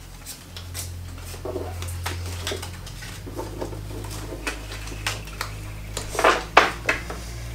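Playing cards being dealt and handled on a table: a scatter of light clicks and taps, with a few sharper ones about six seconds in.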